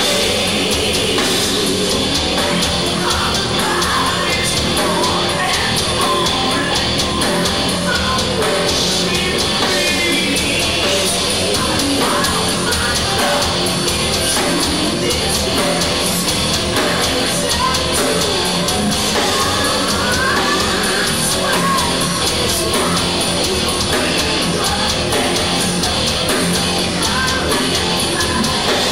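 Heavy metal band playing live: a lead vocalist singing and yelling over distorted electric guitar, bass guitar and drums, in 5/4 time.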